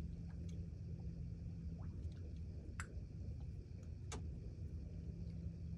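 A steady low hum, with two faint ticks about three and four seconds in from hackle pliers and fly-tying tools being handled at the vise.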